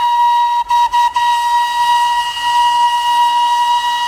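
Darjeeling Himalayan Railway steam locomotive's whistle blowing one long, steady high note, briefly broken a few times about a second in.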